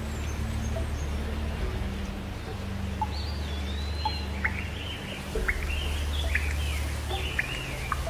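Steady rain with a low rumble beneath it; from about three seconds in, a bird calls over it with a run of quick whistled chirps that glide up and down.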